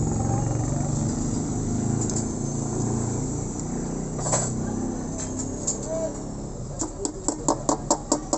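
Rapid metal-on-metal taps, about five a second, starting near the end, as a new wheel bearing is driven into a motorcycle wheel hub with a hammer on a pipe drift. Before that, a steady low hum and a single click.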